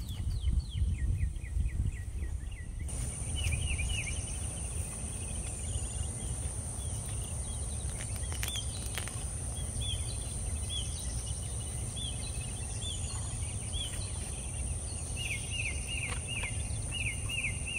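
Outdoor garden ambience: a steady high insect drone comes in about three seconds in, over repeated short bird chirps that speed up into a quick series near the end, with a low rumble underneath.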